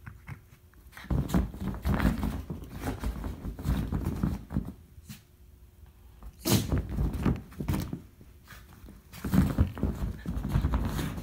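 Two miniature schnauzers, an adult and a puppy, play-wrestling over a toy: scuffling, thumps on a dog bed and dog noises in three bouts, the first starting about a second in.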